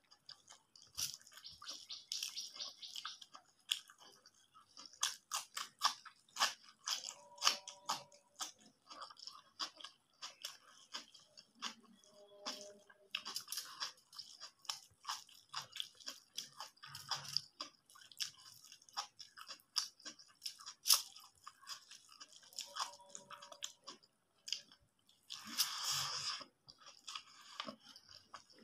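Close-miked eating: a person chewing mouthfuls of rice and scrambled egg, with many small wet mouth clicks, smacks and some crunching. Fingers mix the food on a steel plate in between.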